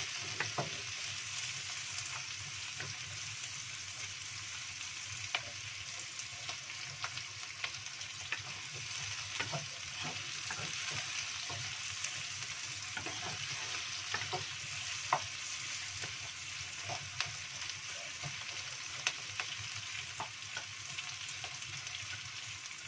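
Sliced shallots and garlic sizzling in hot oil in a wok, stirred with a wooden spatula that clicks and scrapes against the pan now and then. The shallots are being sautéed until they wilt.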